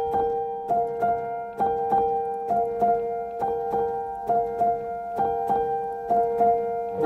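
Background music: a gentle repeating melody, with notes struck about twice a second over a held note.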